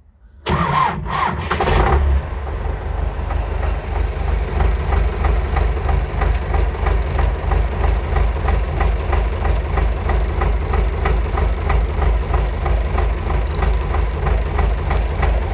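Tractor engine cranked on the starter for about a second and a half, then catching and settling into a steady idle. It is a cold start, and the engine is left idling to warm up.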